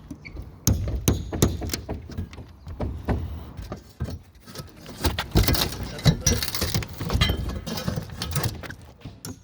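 Irregular knocks and sharp clicks with rustling and a low rumble, busiest a few seconds in.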